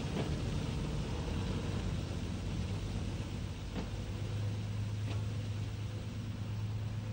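Narrow-gauge diesel railcar running as it pulls away with its trailer and van: a steady low engine drone that grows louder about halfway through, with a few faint clicks.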